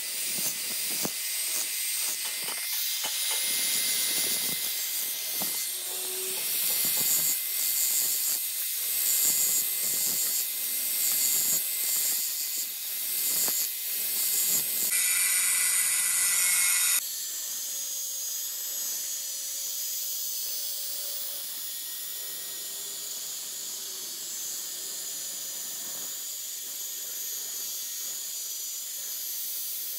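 Angle grinder with an abrasive disc grinding the splined shaft of a truck differential pinion turning in a lathe: a steady high-pitched hissing grind. The sound changes abruptly about halfway through and is steadier and quieter after that.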